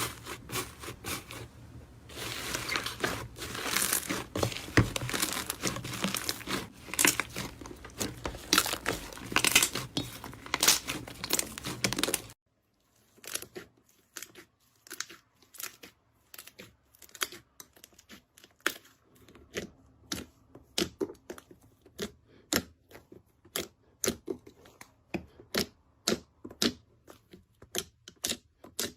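Slime being squished and worked by hand, making dense crackling and popping. About twelve seconds in it cuts to a quieter stretch of separate sharp pops and clicks.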